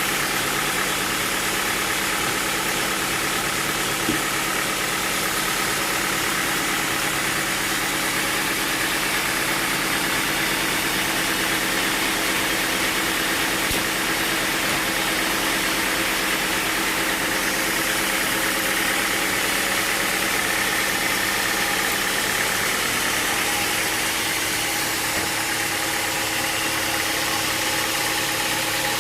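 Sawmill machinery running steadily, an engine-driven hum with several steady tones over a broad hiss; the tones shift slightly about 23 seconds in.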